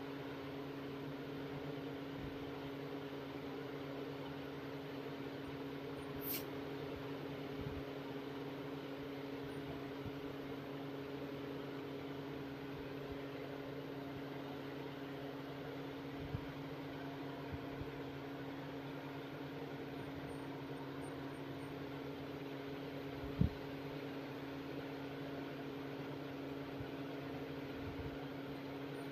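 Steady low mechanical hum of a running motor, as from a room fan or appliance, with a few faint clicks and one sharper tick about two-thirds of the way through.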